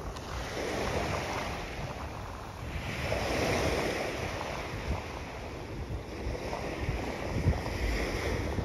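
Waves washing onto a sandy beach, the surf swelling and falling back every few seconds, with wind rumbling on the phone's microphone.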